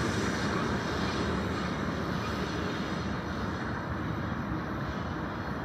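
Freight train's last cars rolling away on the rails, a steady wheel-and-rail noise that slowly fades and dulls as the train recedes.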